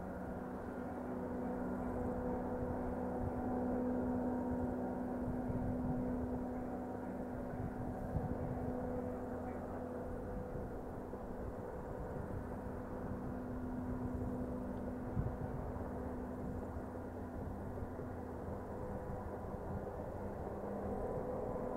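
Diesel locomotive engine running steadily, a constant low drone with a steady pitched hum that swells and fades slightly.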